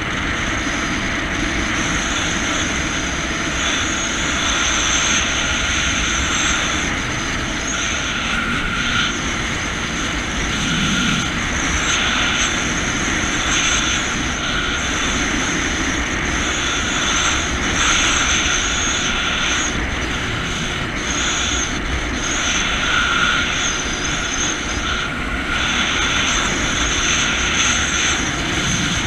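Jet ski engine running steadily at cruising speed, mixed with the rush of water under the hull as it moves along the river.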